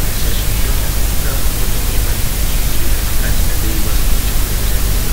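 Loud, steady hiss and static with a deep rumble underneath, nearly burying a man's voice that is only faintly heard through it.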